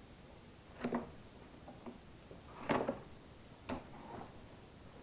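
Cardboard box being handled and opened by hand: a few short knocks and scrapes of cardboard, the loudest just past halfway.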